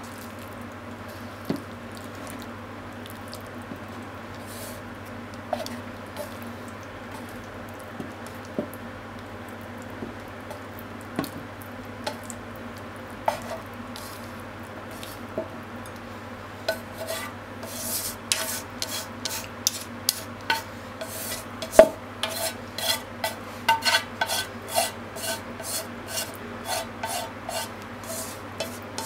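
Chopsticks scraping and clicking against a frying pan as saucy stir-fried fried tofu is pushed off into a bowl. Scattered clicks at first, then quick repeated taps from about halfway through, with one sharp knock standing out about three-quarters of the way in. A steady low hum runs underneath.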